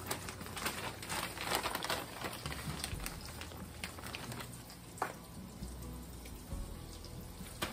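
Hot oil sizzling and crackling around cornmeal-coated squash slices frying in a skillet, with irregular sharp pops through the steady sizzle.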